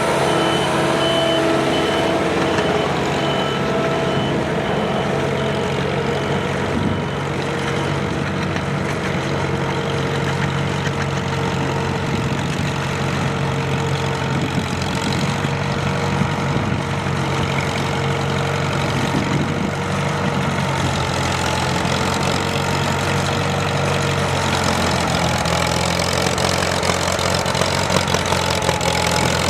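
A heavy engine idling steadily, its pitch shifting slightly about 25 seconds in.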